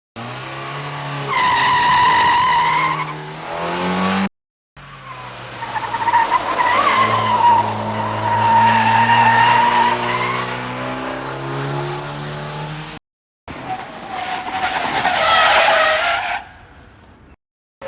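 Three car sound effects, each cut off by a short silence. First, a car engine and tyre squeal, with the engine note rising near the end. Then a longer tyre skid over the engine. Last, a tyre screech that falls in pitch and stops suddenly, as in hard braking.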